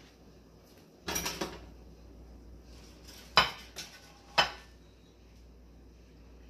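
Kitchen utensils clinking against cookware. First comes a short rattle of several clinks, then a loud clink, a softer one, and another loud clink about a second later.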